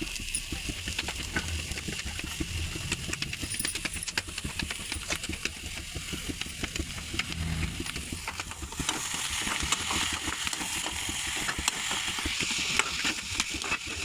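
Vegetable sabzi sizzling in a hot pan while it is stirred, with many small scrapes and crackles over a steady hiss; the sizzle grows louder a little after halfway.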